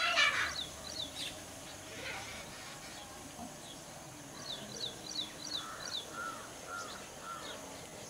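Wild birds calling: a loud, rough call in the first half second, the loudest sound, then runs of quick, high, falling chirps and a few short mid-pitched notes.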